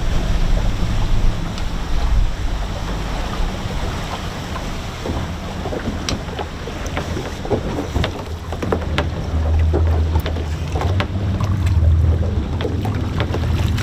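Boat's engine running at low speed as it turns and closes in slowly, a steady low hum under wind buffeting the microphone. Water slaps and splashes against the hull, in short sharp bursts in the second half.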